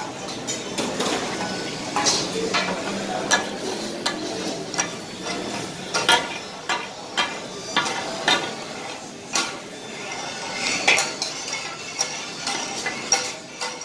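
Two flat steel spatula blades striking and scraping on a hot flat griddle as kata-kat offal is chopped and turned, in irregular metallic clanks about one or two a second, over a steady sizzle of frying meat. Near the end the blades scrape the meat into a steel bowl.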